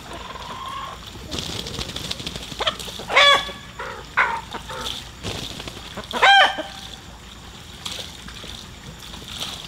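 Chickens clucking, with two loud, short calls about three and six seconds in and a few softer calls between them.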